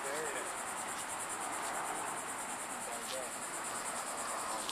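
Insects chirping: a steady, high-pitched, rapidly pulsing trill, with a faint murmur of distant voices underneath.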